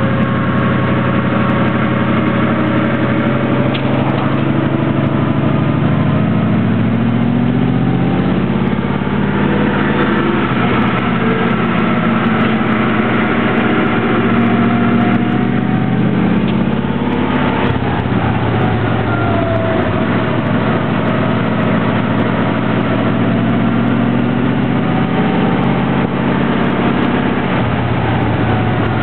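Car engine and road noise heard from inside the cabin while driving slowly, the engine note drifting up and down gently with small changes in speed.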